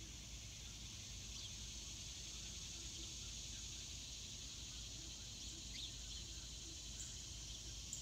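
Faint, steady high-pitched chorus of insects, with a few short bird chirps scattered through it, about a second and a half in and again near the end.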